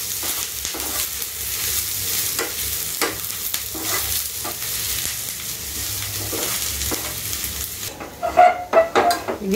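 Onions deep-frying in oil in a kadai: a steady sizzle with the scrape and tap of a spoon stirring them as they go golden brown. Near the end the sizzle drops away and a few louder clatters follow.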